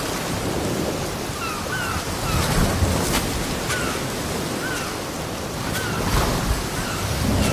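Ocean surf breaking and washing up a beach, a steady rush that swells twice. Faint short chirps repeat about once a second over it.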